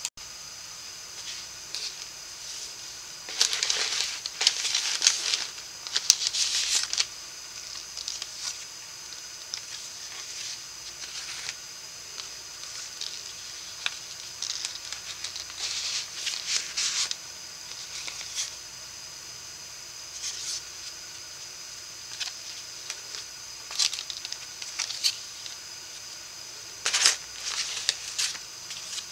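Cardstock and paper folio panels rustling and sliding under hands as they are unfolded and handled, in short bursts several seconds apart, over a steady faint high-pitched hiss.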